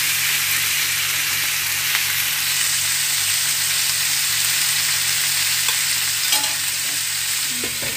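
Marinated pork spareribs frying in hot oil in a nonstick pan: a steady sizzle.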